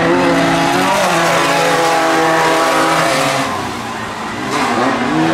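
Engines of two off-road race buggies running hard as they race on a dirt track, their pitch rising and falling with the throttle. The sound dips briefly about three and a half seconds in, then a burst of noise follows.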